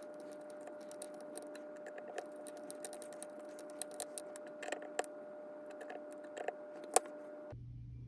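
Small hex screwdriver tightening tiny Allen retaining screws on a bicycle dropper post's actuator clamp: scattered light metal clicks and ticks of the bit and screws, with the sharpest click about seven seconds in. A steady hum lies underneath and cuts off near the end.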